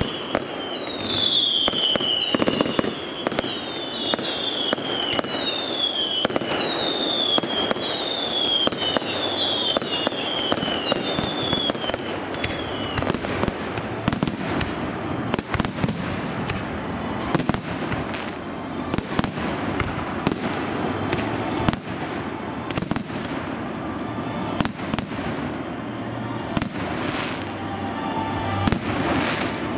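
Fireworks display: a dense, continuous barrage of shell bursts and crackling bangs. Through roughly the first twelve seconds a series of falling whistles sounds about once a second over the bangs.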